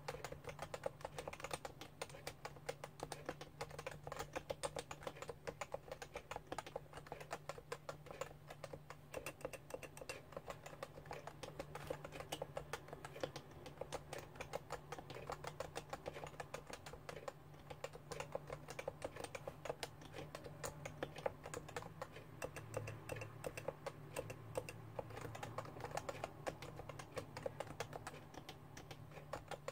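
Continuous fast typing on a Realforce R2 keyboard with Topre electrostatic-capacitive switches, whose rubber-dome keystrokes give a rapid, uneven stream of soft clicks. A faint steady low hum runs underneath.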